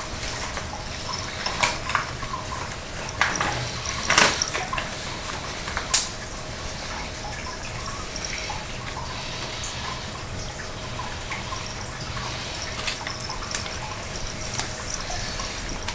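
Cats eating wet food from a tin can and bowls: wet, smacking licking and chewing with scattered small clicks, two sharper ones about four and six seconds in.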